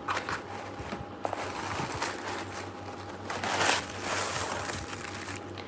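Rustling and crinkling of a delivery package's wrapping as makeup items are taken out, with a few small clicks and a louder rustle about three and a half seconds in.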